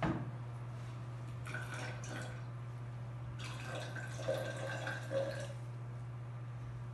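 Blue-coloured water poured slowly from a small cup into a tall graduated cylinder, trickling and dripping onto the glycerin layer below, over a steady low hum.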